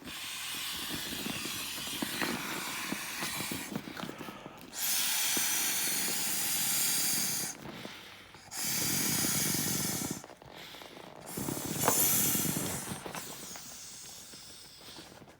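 Air being blown in long hissing rushes into a half-deflated inflatable toy baseball to reinflate it. There are several blows of one to three seconds each, with short pauses between; the loudest come about five and nine seconds in and near the end.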